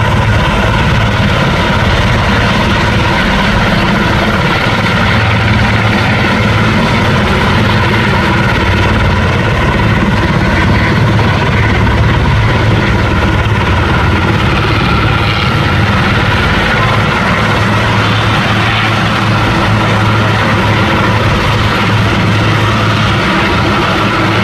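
Heavy engine running loud and steady as an antenna section is hoisted on a cable, with a deep hum that neither rises nor falls.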